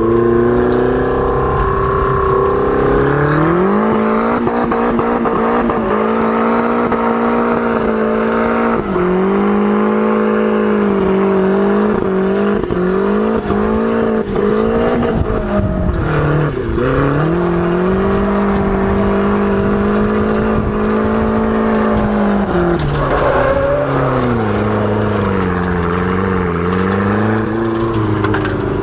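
Drift car engine running at high revs, heard from inside the open cockpit. The revs mostly hold steady, drop sharply and pick back up about halfway through, then dip and climb again near the end.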